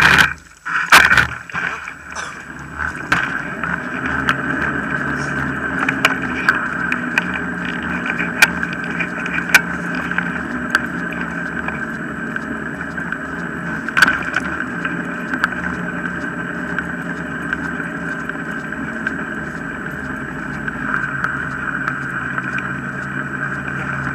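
Wheels of a dog-drawn urban mushing rig rolling along a tarmac path: a clatter of knocks as the team sets off, then a steady rolling whir with scattered clicks and knocks from bumps.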